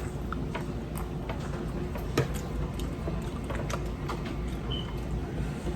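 Close-up eating sounds from a seafood boil: scattered wet clicks and smacks of people eating crab, with one louder click about two seconds in.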